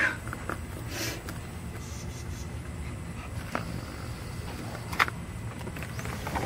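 A puppy's claws tapping and scraping against a sliding glass door and its metal frame: a few sharp clicks, the loudest at the start and another about five seconds in, over a steady low rumble.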